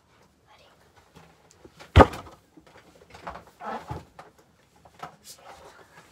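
One loud knock about two seconds in, among scattered light clicks and rustles of things being handled.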